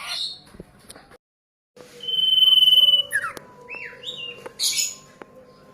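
Young ashy drongo singing in mimicry of a common iora: a long, steady, high whistle held for about a second, then several short sliding whistled notes and a brief high buzzy note.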